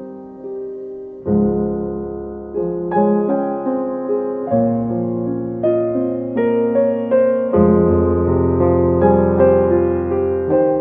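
Background piano music: slow chords, each note struck and then fading, with deep bass notes coming in about a second in.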